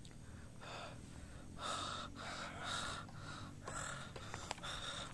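A person's rapid, heavy breathing close to the microphone: short, noisy gasps in and out, about one every half second to second, the breath of someone frightened and trembling.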